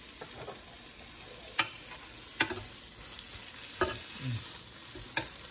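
Chicken sizzling on the hot grate of a Ninja Foodi indoor grill, with four sharp clacks of tongs against the grill as the pieces are turned.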